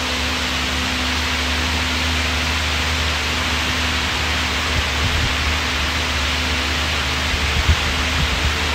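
Air bike's fan whooshing steadily as it is pedalled hard, a constant rush of air over a low hum. A few soft low thumps come in the second half.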